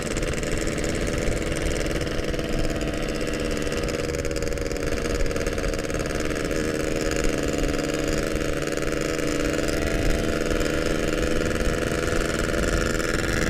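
Yamaha RX-King's single-cylinder two-stroke engine running at a steady cruising pace, its pitch holding nearly even with a slight easing in the middle.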